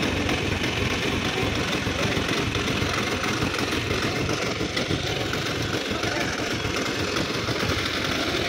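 Piaggio Ape auto-rickshaw engine idling steadily close by.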